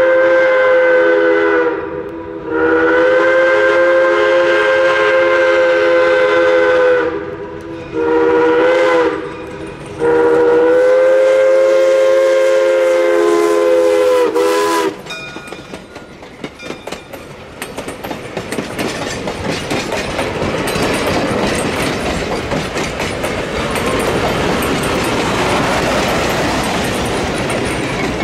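Baldwin 0-6-0 switcher #3's steam whistle, sounding several notes at once, blows the grade-crossing signal: long, long, short, long, with the last blast ending about halfway through. The locomotive and its coaches then roll close by, their wheels clattering over the rail joints and growing louder.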